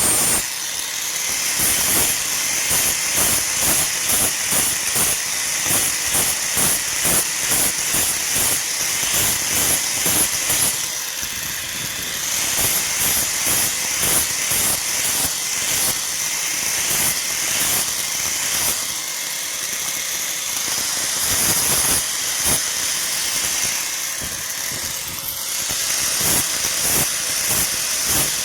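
Steel knife blade being worked with rhythmic abrasive strokes, a hissing rasp about two to three strokes a second, pausing briefly a few times.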